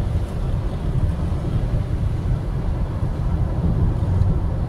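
Steady road noise of a car travelling at highway speed, heard from inside the cabin: a constant low rumble of engine and tyres.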